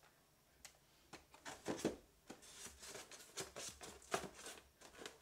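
Things being handled and moved around: a run of irregular clicks, rubs and scrapes of plastic and packaging, starting about a second in.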